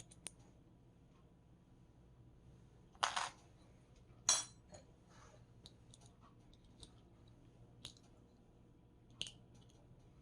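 Handling noises of repair work on a computer keyboard: scattered light clicks and taps, a short clatter about three seconds in, and a sharper clink just after four seconds.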